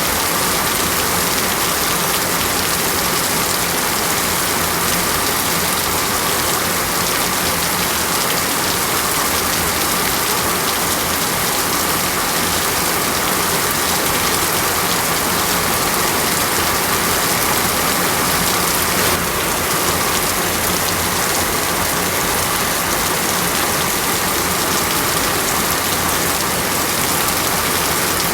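Steady heavy rain pouring down and hitting leaves and ground in a dense, even hiss, without let-up.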